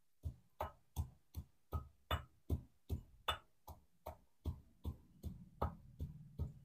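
Iron pestle pounding roasted peanuts in a deep metal mortar: a steady run of strokes, nearly three a second, crushing them to a coarse powder.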